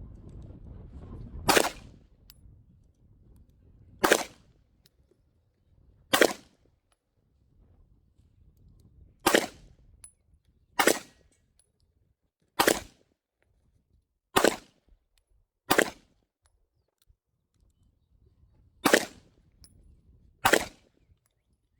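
Ten single gunshots fired one at a time at an uneven pace, spaced about one and a half to three seconds apart, with quiet between them.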